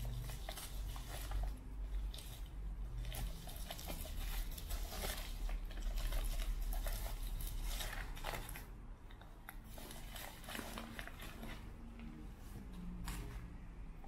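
Plastic bubble wrap crinkling and rustling as it is handled and pulled off a small boxed radio, with a low rumble from handling. The crackling is busiest in the middle and thins out near the end as the wrap comes away.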